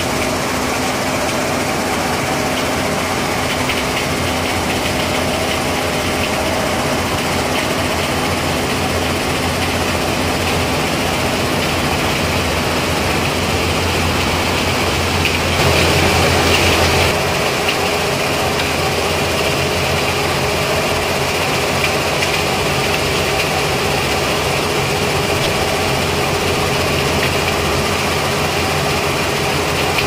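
Sand-making line machinery running: a steady mechanical drone of drive motors, a belt conveyor and a bucket-wheel sand washer. It gets louder for about a second and a half just past halfway.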